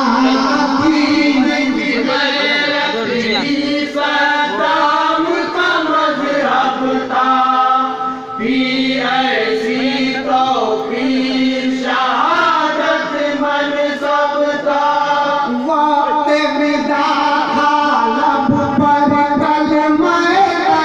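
A man singing an Urdu devotional kalam into a microphone in a chanting, melodic style, with long held notes and gliding phrases.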